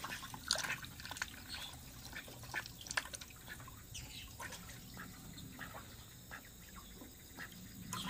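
A duck eating mealworms from a small plastic cup held at the water's surface: irregular small clicks of its bill in the cup, with drips and light splashes of water.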